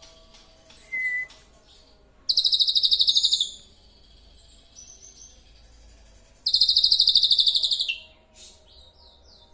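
Songbird singing, of the kind played as a lure recording to set caged birds singing: two loud, rapid, high trills about four seconds apart, each lasting just over a second. A short whistle comes about a second in, with softer chirps between the trills.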